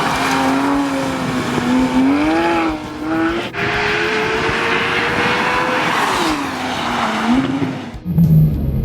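Porsche 991 GT3's naturally aspirated flat-six revving hard at speed, its pitch climbing, with a sharp crack about three and a half seconds in, then falling away as it slows. Near the end the sound changes abruptly to a low, steady engine hum.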